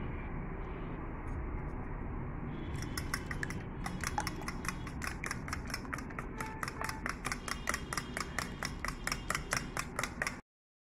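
Eggs being beaten by hand in a stainless steel bowl, the utensil clicking rapidly and evenly against the metal at several strokes a second, starting about two and a half seconds in. The sound cuts off abruptly just before the end.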